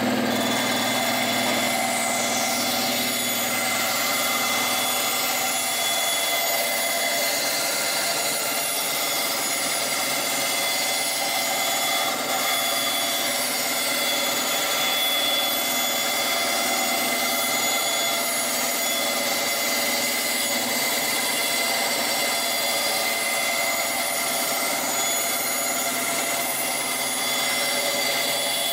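Ryobi 9-inch benchtop band saw running steadily, its blade slowly ripping a long test cut through a plywood board fed along a straight edge, to check for blade drift after the guide and thrust bearings have been set.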